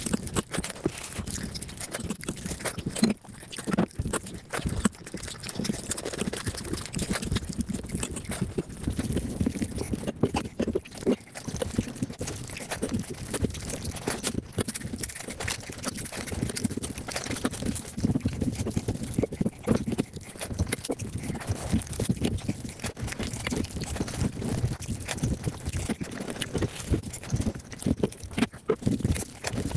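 Eating sounds sped up to five times normal speed: a fast, unbroken run of chewing, smacking and mouth clicks.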